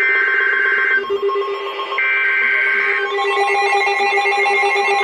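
Emergency Alert System SAME header data bursts on NOAA Weather Radio: two buzzy, screeching digital bursts about a second long, a second apart. About three seconds in, the steady warning alarm tone begins, signalling that a warning message follows.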